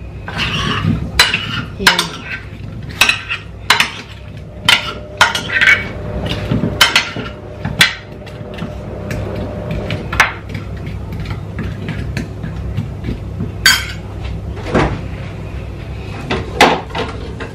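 Metal spoon and knife clinking and scraping against a ceramic baking dish while tossing oiled chunks of potato, carrot and pepper. Rapid clinks and scrapes for about the first ten seconds, then only a few scattered knocks.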